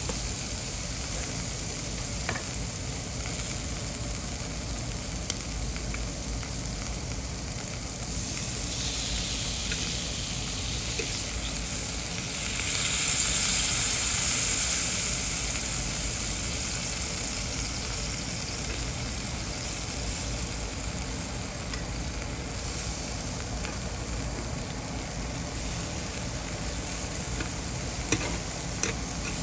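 Meat sizzling on a tabletop barbecue grill: a steady sizzle that swells louder for a few seconds about halfway through, with a few light clicks.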